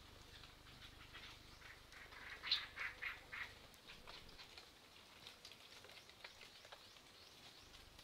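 Small birds bathing in a shallow forest pool, with faint splashing and flicking of water. Around the middle comes a quick run of four or five harsh bird call notes, the first the loudest.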